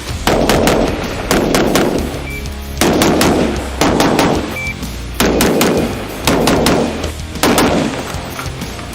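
HK416D 5.56 mm carbine firing short rapid strings of two to four shots, a new string about every second, over background music.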